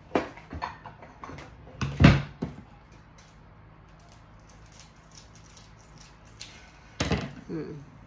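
Handling sounds: a few light clicks and knocks, a loud thump about two seconds in, and another sharp sound about seven seconds in.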